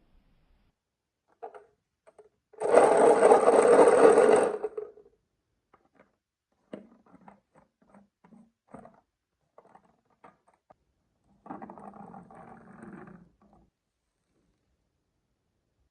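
Marbles rolling along a wooden marble run track. A loud steady rolling run of about two seconds is followed by scattered light clicks and knocks, then a second, quieter rolling stretch near the end.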